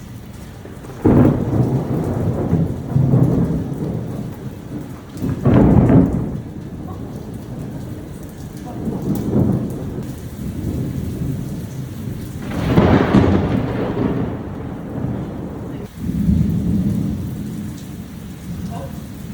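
Close thunder during a heavy rainstorm: a sudden crash about a second in, then rolling rumbles that swell and fade several times, and another sharp crash a few seconds before the end, over steady heavy rain.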